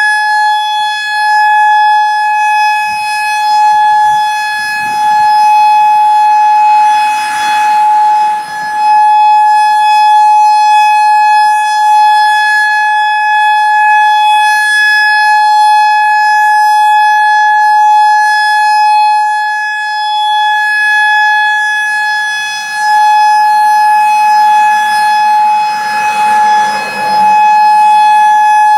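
Federal Signal EOWS 612 electronic warning siren sounding its Alert signal: one loud, steady tone with no rise or fall in pitch, the routine monthly tornado-siren test. Its loudness dips and swells every few seconds.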